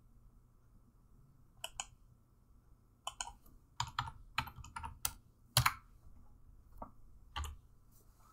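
Computer keyboard and mouse clicks: a scattering of sharp taps, a pair about two seconds in, a quick run of about eight over the next few seconds, then two more near the end.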